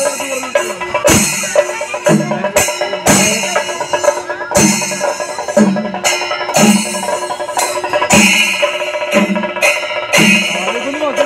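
Loud festival percussion music: heavy drum strokes about once a second over a constant jangle of cymbals, with a low held note between the strokes.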